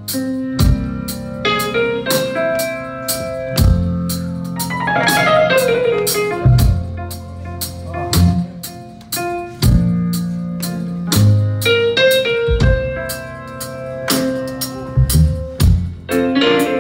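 Live rock band playing an instrumental passage without vocals: a drum kit keeping a steady beat under electric bass and electric guitar.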